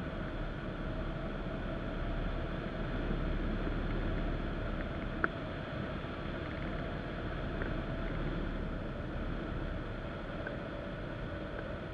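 Steady rush of air over a hang glider in flight, heard as wind on a wing-mounted camera's microphone, with a single sharp click about five seconds in.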